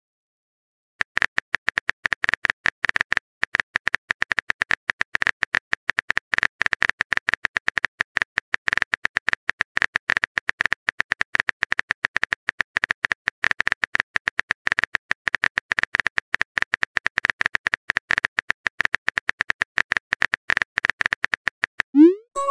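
Texting-app typing sound effect: rapid, even keyboard clicks starting about a second in and running on while a long message is typed, ending near the end with a short rising tone as the message goes out.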